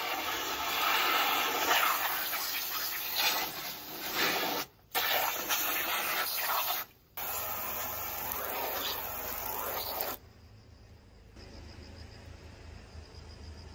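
Water jetting from a garden hose spray nozzle into a plastic shopping bag being rinsed out: a steady hiss and splash of spray, cut off briefly twice, that stops about ten seconds in.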